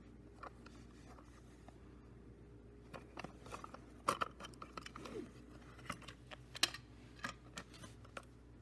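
A clear plastic cassette case being opened and a Sony LNX 90 cassette lifted out: a run of sharp plastic clicks and clacks starting about three seconds in, the loudest about four seconds in and again past six seconds.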